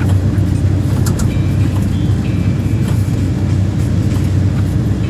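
14.5-tonne excavator's diesel engine running steadily under load while it pulls down a timber fence. There are a few cracks about a second in and short high squeals over the next couple of seconds.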